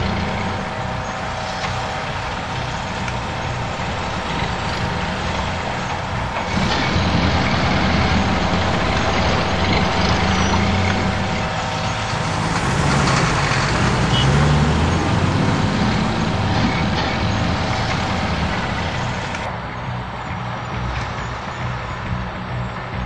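Heavy diesel machinery running at a gravel quarry, excavator and dump truck engines over a steady whine from the conveyor and screening plant. The engine rumble grows louder in the middle, and the sound changes abruptly twice.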